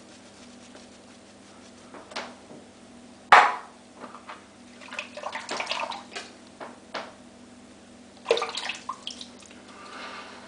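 Water splashing and dripping in a sink, in irregular bursts, with one sharp knock about a third of the way in.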